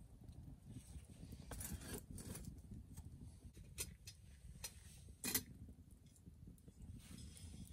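Wood campfire crackling faintly, with a few sharp metal clanks and knocks as a wire grill grate and then a metal pot are set over the flames; the loudest clank comes about five seconds in.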